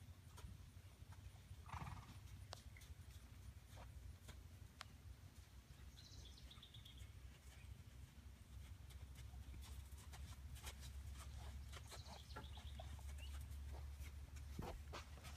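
Faint sounds of a horse walking on sand under a bareback rider: soft, irregular hoof steps and small ticks of tack over a low rumble. A short louder noise comes about two seconds in.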